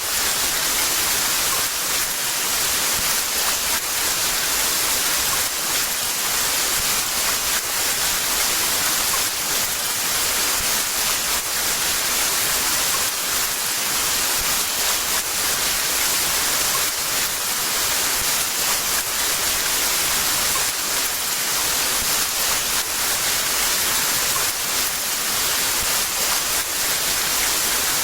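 Heavy rain falling steadily, a dense even hiss with fine drop patter.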